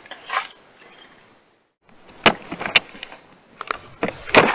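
Plastic tackle box being handled and opened: a few sharp clicks, then rattling and clatter from the box and its contents near the end.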